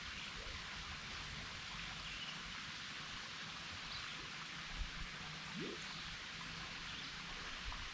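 Faint, steady outdoor background hiss with a few light ticks and no clear single source.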